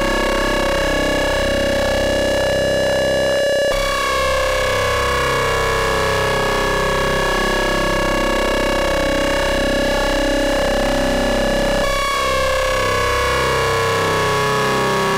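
Modular synthesizer drone from Rossum Trident oscillators, ring-modulated into a dense, buzzy tone of many pitches sounding at once, some sliding slowly. Its timbre jumps abruptly twice as a knob on the oscillator is turned.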